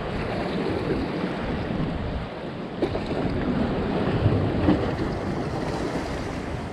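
Wind buffeting the microphone in gusts, over waves lapping against a rocky shoreline, with a single short click a little under three seconds in.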